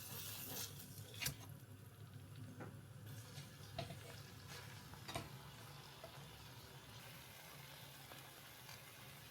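Quiet kitchen sounds: a faint steady hiss under a few light clicks and taps of utensils.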